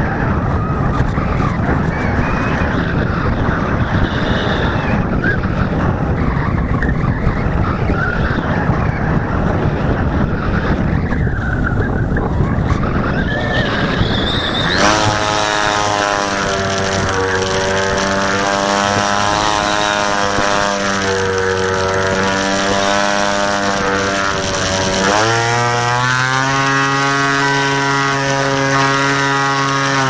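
Electric brushless outrunner motor and propeller of an FPV flying wing in flight, heard from the onboard camera. For the first half heavy wind buffeting on the microphone covers it. From about halfway the motor's whine comes through clearly, holding one pitch, then stepping to another as the throttle moves, with a rise a little over three-quarters through and a drop at the very end.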